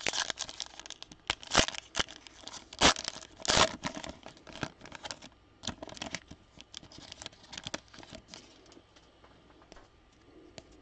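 Wrapper of a 2021 Donruss football card pack being torn open and crinkled by hand. A run of sharp rips in the first few seconds gives way to lighter crinkling that fades out.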